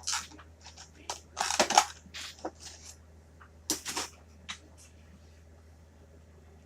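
Plastic toy packaging being handled and pulled apart: a run of crinkles, rustles and sharp clicks over the first few seconds as a PVC figure and its loose arm are freed from the box.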